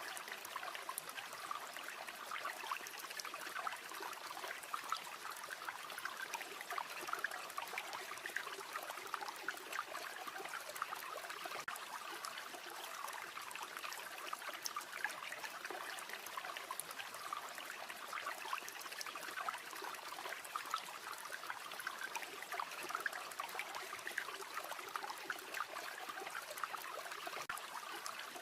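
River water flowing in a steady trickling rush, dotted with many small ticks and splashes.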